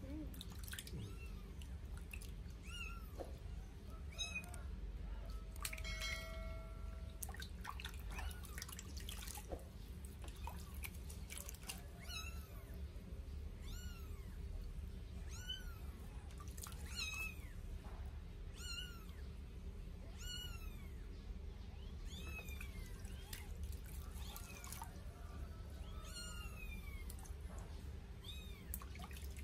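Newborn sphynx kitten mewing again and again: short, high cries that rise then fall, sparse at first and then every second or two, over light splashing and dripping of the bath water.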